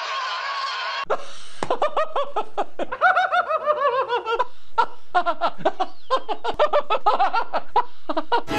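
Men laughing hard in quick succession, in short pitched bursts. About three seconds in there is a long run of high, shrill giggles falling in pitch, then more open-mouthed laughing.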